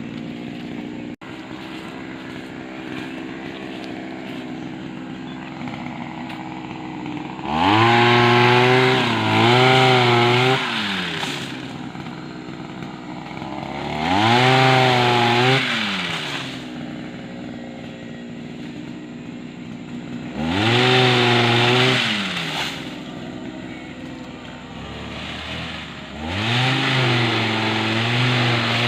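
Small engine of a motorized palm-pruning pole saw idling, then revved up hard and let back down four times, about every six seconds, as it is worked.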